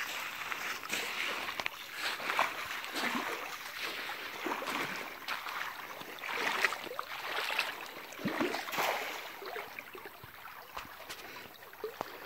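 Water sloshing and splashing irregularly as a person wades through shallow river water, with the splash of a cast net thrown into the river.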